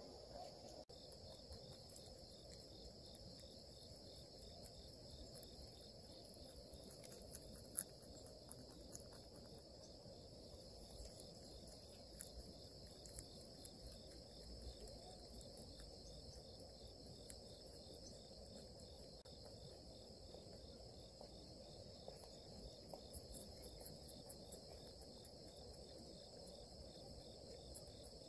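Faint, steady chorus of crickets chirping in a continuous high trill, with scattered soft ticks and one sharper click about a third of the way in.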